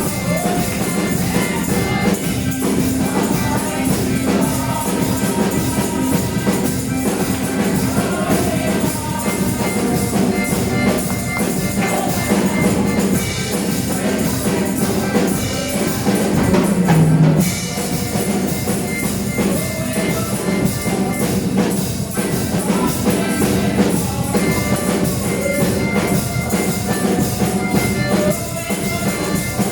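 Church band music with a drum kit and tambourine keeping a steady, driving beat under sustained instrument tones.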